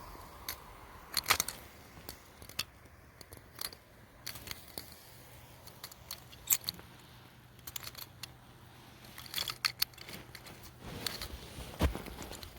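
Nails and tacks clicking and clinking against a powerful magnet: irregular sharp metallic taps, some in quick clusters, the busiest stretch near the end.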